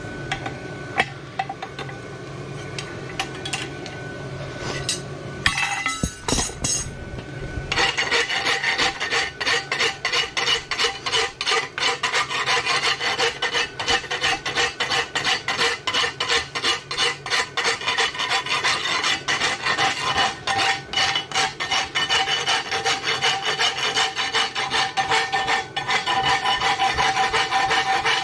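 A few light clinks and scrapes, then, from several seconds in, rapid, steady back-and-forth scraping strokes of a file or brush on a steel horseshoe as the farrier dresses the shoe.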